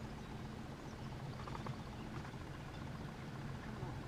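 A boat motor running steadily at low trolling speed: an even low hum under a faint hiss.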